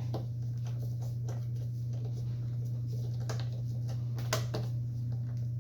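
A few light clicks and knocks from hands working on a chop saw, over a steady low hum.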